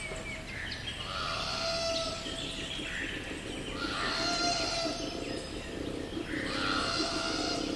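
Koala bellowing in low, pulsing rounds, with birds chirping in the background.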